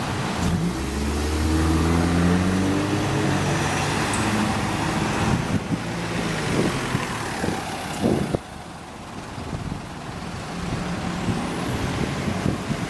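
Optare Solo bus running, its engine note climbing for the first few seconds as it accelerates, over a steady road roar. About eight seconds in there is a short loud noise, after which it runs quieter.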